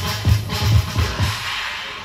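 Electronic dance music with a heavy kick drum beating about twice a second; the kick drops out about one and a half seconds in while the rest of the track carries on.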